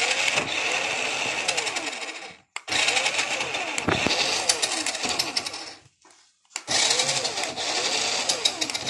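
Toy RC car's small electric drive motor and plastic gears whirring as its wheels spin freely in the air with the car upside down, the pitch swinging up and down as it is throttled. It runs in three spells, cutting out briefly about two and a half seconds in and again for about a second around six seconds in.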